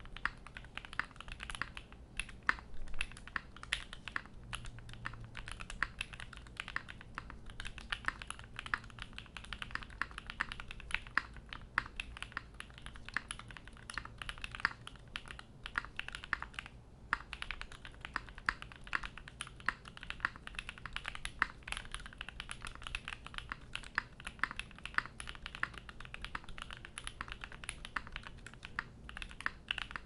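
Continuous typing on a Polaris 60% custom mechanical keyboard with lubed 8008 Ink-housing switches fitted with Raed stems, a POM full plate, case foam and GMK keycaps: a steady stream of key clacks with one short break a little past halfway.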